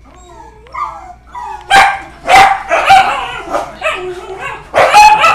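Excited pet dogs whining and yipping, with four loud barks: three in quick succession about two seconds in and one near the end. This is the excitement of dogs greeting their owner coming home.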